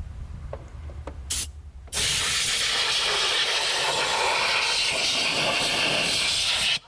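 Compressed-air blow gun blasting metal shavings out of an engine bay: a short puff about a second in, then a steady loud hiss for about five seconds that cuts off sharply.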